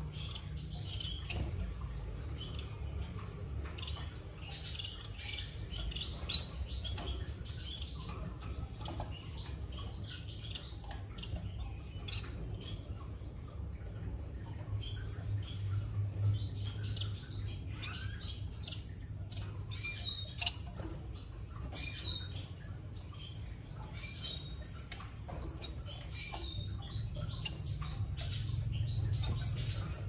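Finches chirping: many rapid, short, high calls throughout, over a steady low hum, with a single sharp tap about six seconds in.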